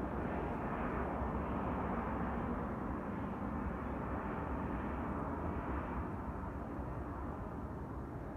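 Airplane engine noise, a steady rumble that slowly fades.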